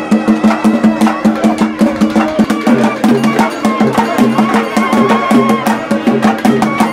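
Tamil folk festival music played live: a fast, steady drum beat with a held drone underneath and a wavering melody line on top.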